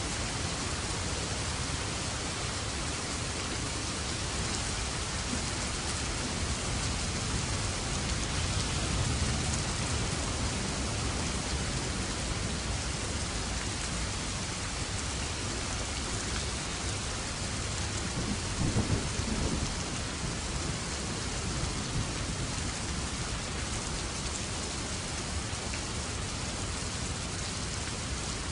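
Steady heavy rain falling, with low rolls of thunder swelling about a third of the way in and again, more sharply, about two-thirds in.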